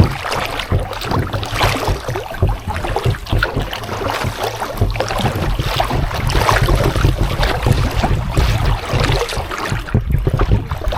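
Kayak paddle strokes dipping and splashing in lake water, with wind buffeting the microphone as a steady low rumble.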